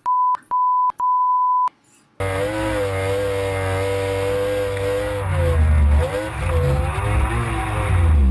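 Three short, high, steady beeps of a censor bleep, then a cut to a speeding inflatable powerboat's outboard engine. The engine runs at a steady pitch that dips and wavers from about halfway through, under a heavy low rumble of wind and water.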